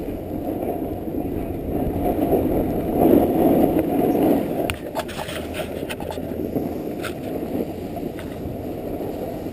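Rushing, scraping noise of snow-sport gear sliding over packed snow, with wind on the microphone. It grows louder for a couple of seconds near the middle, and a few sharp clicks follow.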